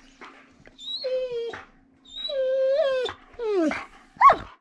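Siberian husky whining in four drawn-out, pitched vocal complaints, the later ones sliding down in pitch and the last one short: the husky is annoyed at being bothered by the other dogs.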